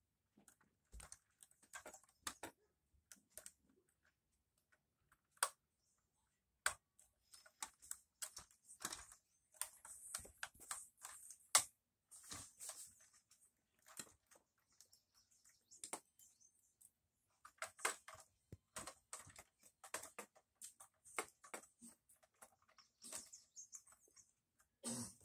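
Irregular, quiet clicks and taps of plastic Lego minifigures and bricks being handled and pressed into a Lego airplane's cabin, with light rustling.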